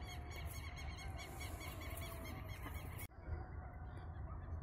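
A flock of birds calling, a rapid string of short, repeated honking calls that cuts off abruptly about three seconds in, with fainter calls after it.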